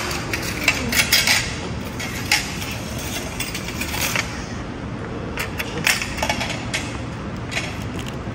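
Light clinks of cutlery and crockery, scattered short sharp clicks, over a steady background hum of a restaurant dining room.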